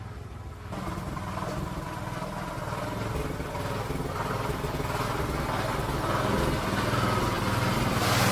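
Small gasoline engine running with rapid, even firing pulses, stepping up about a second in and growing steadily louder.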